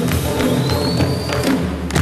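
Traditional Rwandan dance music: steady, quick drum beats over a low layer of voices, with a high note rising slowly through the middle. It closes on one loud final beat at the very end.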